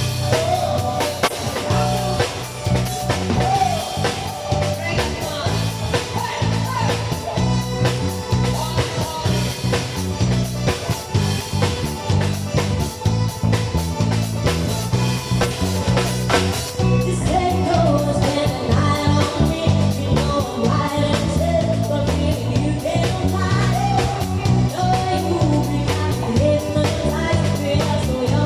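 A band playing music: a steady drum-kit beat under a bass line and guitar.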